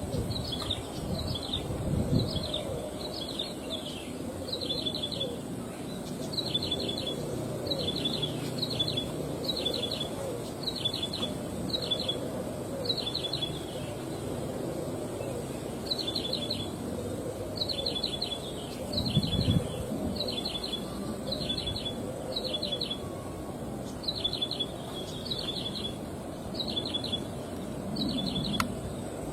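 Ciblek sawah (a prinia) singing: short high phrases of three or four quick notes, repeated over and over about one and a half times a second, with a pause of a couple of seconds midway.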